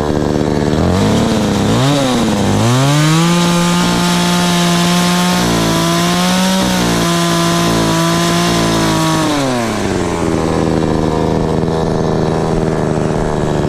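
Two-stroke chainsaw idling, blipped up twice, then held at full throttle for about six seconds with a few brief dips as it cuts through a fruit-tree limb, before dropping back to idle near ten seconds in.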